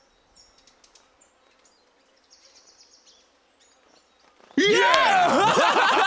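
Faint bird chirps over quiet outdoor ambience, then, a little over four seconds in, loud laughter from the cartoon bear and crocodile starts and carries on to the end.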